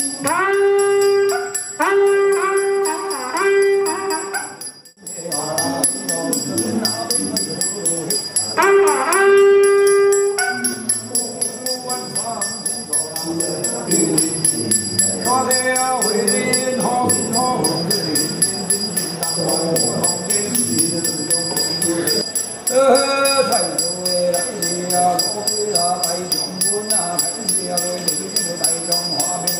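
Instrumental music with a bell-like jingle. It opens with one short note played four times about a second apart, then moves into a fuller tune.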